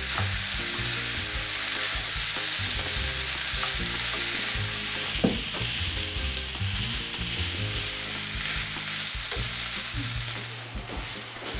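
Grated raw potato and diced Montasio cheese sizzling in a frying pan while a wooden spoon stirs them, the cheese slowly melting into the potato. One sharp knock about five seconds in.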